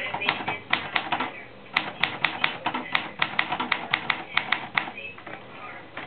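Manual typewriter being typed on: irregular sharp clacks of the typebars striking the platen, several a second, with a short pause a little after one second in and fewer strokes near the end.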